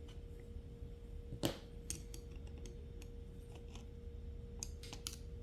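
Light metallic clicks and scrapes of hand tools and metal parts being worked while prying the valve out of a T4E TR50 marker. The sharpest click comes about a second and a half in, with a quick run of small ticks near the end. A faint steady hum lies underneath.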